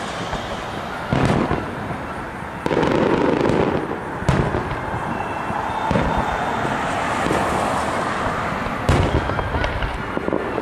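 Aerial fireworks shells bursting: about five sharp bangs spaced a second or two apart over a continuous crackling wash.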